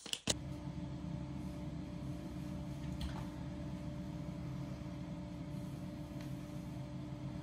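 Steady low mechanical hum, constant in pitch, with a couple of faint light taps.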